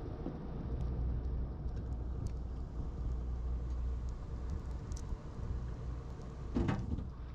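Steady low rumble of a fishing boat at sea, with wind on the microphone, faint scattered ticks, and a brief louder noise near the end.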